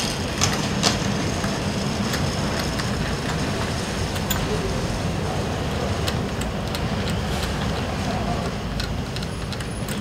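Scattered light clicks and taps as a motorcycle battery and its terminal leads are handled in a scooter's floorboard battery compartment, over a steady low background rumble.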